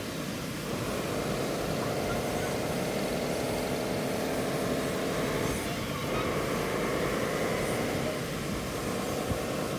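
Radio-controlled wheel loader's electric motors whining as it drives and works in sand; the whine rises slowly in pitch, drops about six seconds in, then climbs again.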